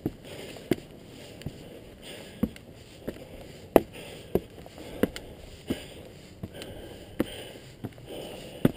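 Footsteps climbing stone stairs at a brisk pace, a hard step about every 0.7 seconds, with the climber's breathing heard between them.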